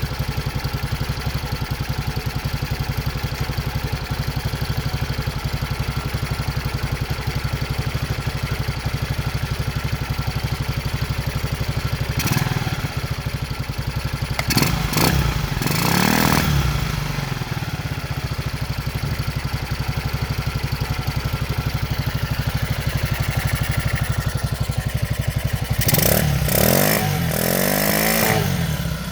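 Racer 164FML 200cc single-cylinder pushrod motorcycle engine with a balance shaft, running on its first start after a repair. It idles steadily, is briefly revved about 12 and 15 seconds in, and is revved up and down again near the end.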